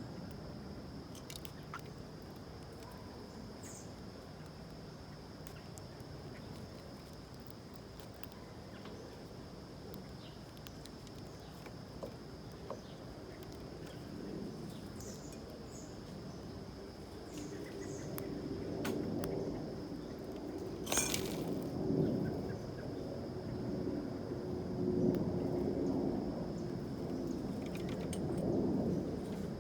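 Backyard ambience: scattered faint, short bird chirps over a steady high-pitched whine. A low rumble builds up in the second half, with one sharp click near the middle.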